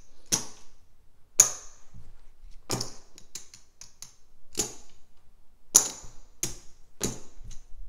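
Casino chips clacking together as they are picked up and stacked by hand while being counted: a series of sharp, irregular clicks with a brief ringing edge, the loudest a little over a second in and again near six seconds in.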